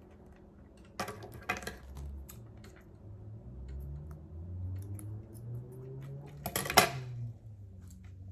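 Light clicks and taps of waist beads and a clasp being handled while the string is threaded and knotted, with a louder clatter of several clicks about six and a half seconds in.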